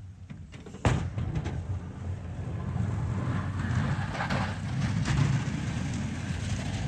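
Road traffic: a vehicle's low engine and tyre rumble that comes in suddenly about a second in and swells a few seconds later.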